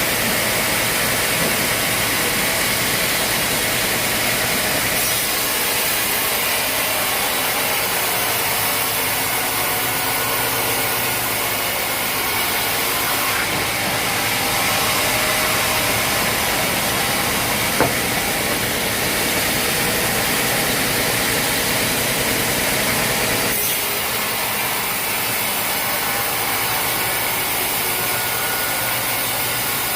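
Sawmill machinery running steadily as a power saw cuts through a log, with the sound changing abruptly a few times and one sharp click partway through.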